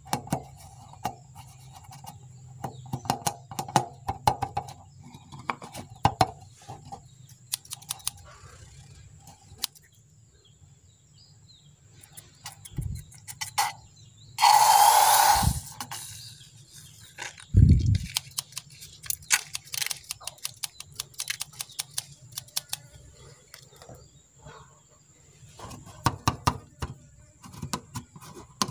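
Fingers rubbing and pressing on a slime-filled rubber balloon, making many small clicks and squeaks. About halfway through comes a loud rushing burst about a second long as the balloon is snipped open with scissors and the slime spills into a glass bowl, followed a few seconds later by a single dull thump.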